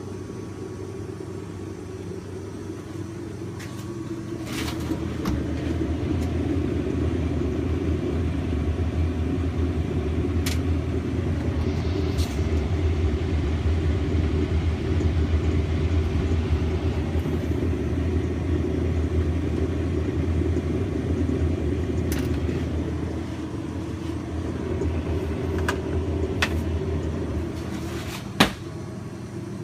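Refrigeration unit of a True TSU-27 deli prep cooler running: a steady low mechanical hum that builds about four seconds in and eases near the end, with a few light clicks and a sharper knock near the end.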